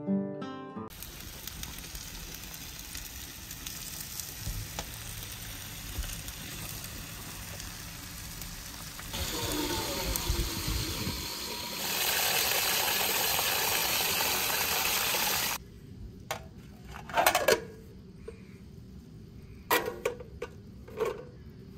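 Water from a garden hose pouring into a stainless-steel wood-burning samovar. It gets louder partway through, then cuts off suddenly. A few sharp metal clanks follow as the samovar's chimney piece is handled and fitted on top.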